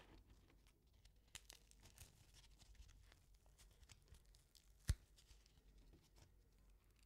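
Quiet close-up kitchen handling sounds: faint crackling and rustling, with one sharp knock about five seconds in.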